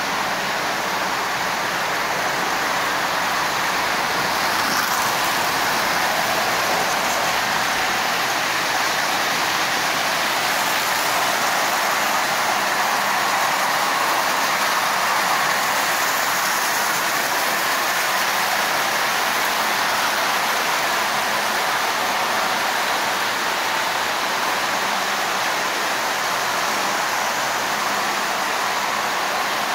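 Several Marx toy trains running at once on three loops of three-rail tinplate track: a steady noise of their motors and of wheels on the metal rails.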